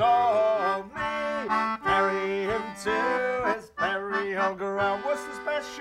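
Concertina playing held chords and a short run of changing notes, with the last word of the song, 'stormy', sung over it at the start.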